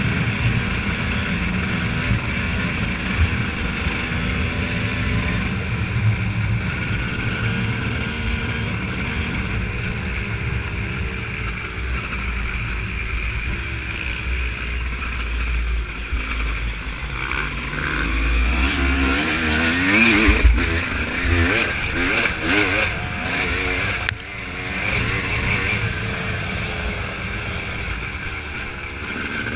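Off-road motorcycle being ridden, its engine running steadily and then revving up and down in pitch, with clattering knocks from about eighteen to twenty-four seconds in.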